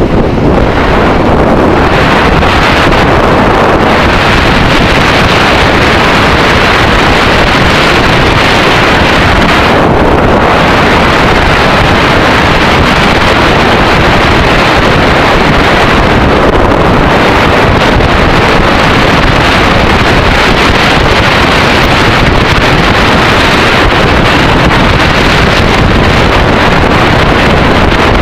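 Loud, steady wind noise buffeting the microphone of a moving motorcycle, mixed with the running of the Yamaha XT600E's single-cylinder engine.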